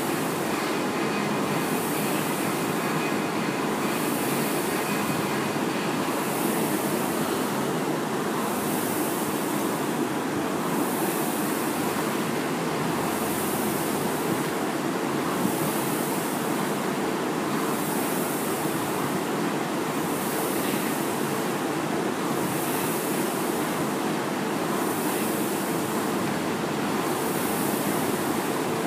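Rowing machine air flywheel whooshing stroke after stroke, a steady rhythm of one surge about every 1.7 seconds.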